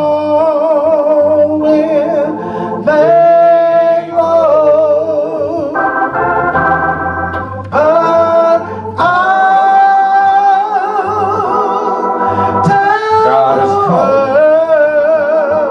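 A solo voice singing a slow gospel hymn in long, drawn-out notes with wide vibrato, over sustained Hammond organ chords.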